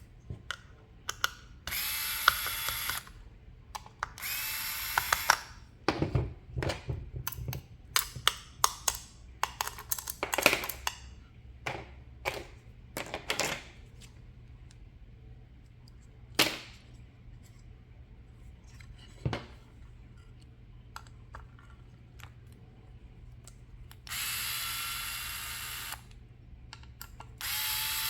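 A small electric screwdriver runs in four short spells of a second or two, each rising in pitch as it spins up, as screws are driven out of a hobby RC car. Between spells there are clicks and knocks from parts and tools being handled.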